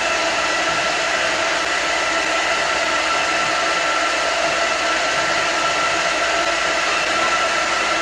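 Electric mobile pig-feed cart running, its motor and conveyor driving feed out through the overhead delivery arm: a steady whir with several high, even tones over a hiss.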